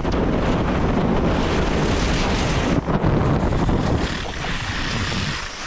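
Wind rushing over the microphone of a camera skiing at speed, mixed with skis hissing and scraping on hard groomed snow. It dips briefly about three seconds in and eases a little near the end.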